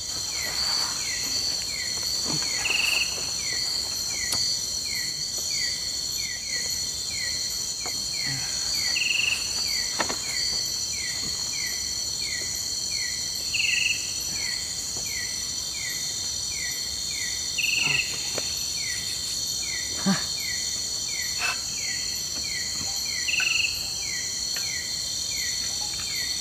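Dusk chorus of tropical forest insects: a steady, shrill, high-pitched drone, with a short falling chirp repeating about every two-thirds of a second and a brief higher note every few seconds. A few faint clicks break in now and then.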